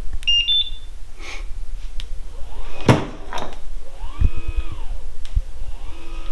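A MotorGuide Xi3 trolling motor answers its wireless remote. There are quick high electronic beeps at the start, a sharp knock about three seconds in, and then the electric motor whirs up and back down in pitch in short repeated runs, about one every second and a half.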